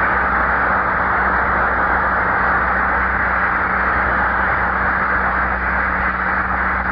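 Audience applauding, a steady even clatter of many hands, over the low hum of an old recording.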